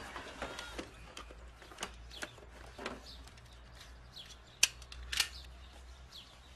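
Quiet handling sounds from hands working with small objects: scattered soft clicks and brief scrapes, with a sharp click about four and a half seconds in and a short rasp just after it.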